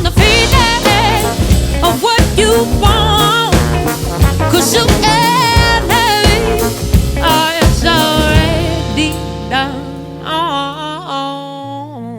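Live band of drums, bass, trombone, keys, vocals and guitar playing the song's closing bars. The drums stop about eight seconds in, leaving held chords that fade out under a few wavering melodic notes.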